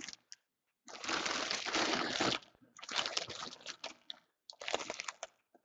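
Clear plastic bag around a folded jersey crinkling as it is handled and turned over, in three bursts of rustling with short pauses between.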